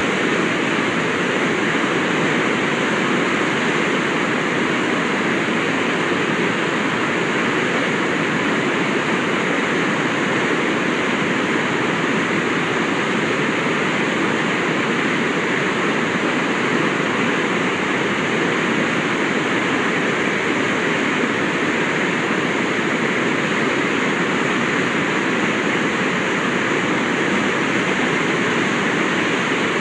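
The Spokane River's waterfall, whitewater pouring over rock in a steady, even rush.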